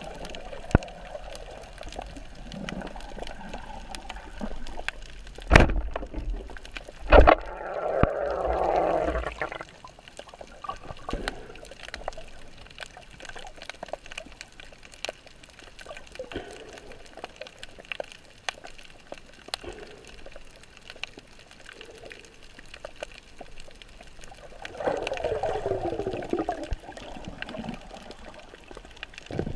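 Muffled underwater sound picked up through an action camera's waterproof housing: a steady hiss full of fine clicking crackle, two sharp knocks about six and seven seconds in, and bubbling gurgles around eight seconds and again near the end.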